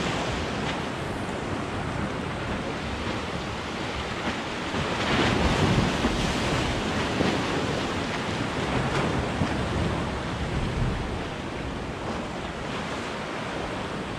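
Sea waves washing and wind buffeting the microphone, a steady rush that swells louder about five seconds in.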